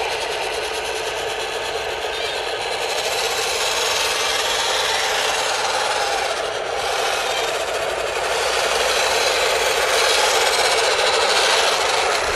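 1:16 RC model tank (Heng Long M26 Pershing base) driving, its electric drive motors, gearboxes and tracks making a steady grinding rattle that gets louder in the second half.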